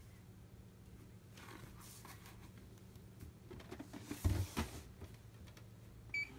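Cardboard rustling and scraping as a cat moves about with a box stuck around its body. A few knocks of the cardboard sound a little past four seconds in, and a brief high tone comes near the end.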